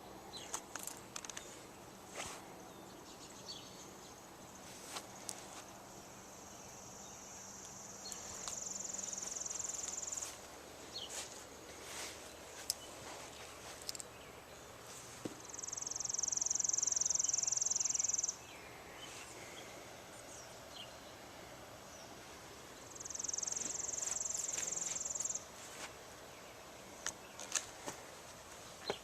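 An insect buzzing outdoors in three separate high-pitched, steady bursts of two to four seconds each, with scattered small clicks and knocks in between.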